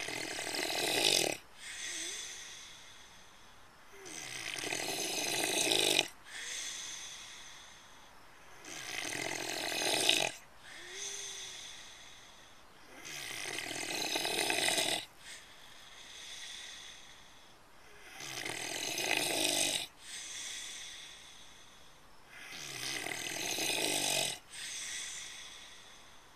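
A pig snoring in its sleep: about six long snoring breaths, one every four to five seconds. Each grows louder and cuts off sharply, followed by a softer breath out.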